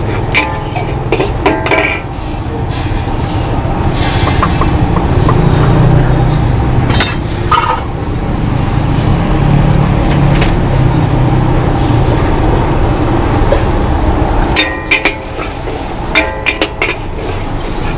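A metal spatula clanging and scraping against a steel wok as mee goreng noodles are stir-fried, each strike ringing briefly. The strikes come in the first couple of seconds and again near the end; in between there is a steady low rumble.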